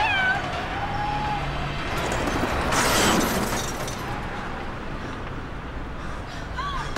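Car engine running, with a loud grinding crash about three seconds in as the car scrapes the metal gate, throwing sparks. Short whimpering cries come near the start and again near the end.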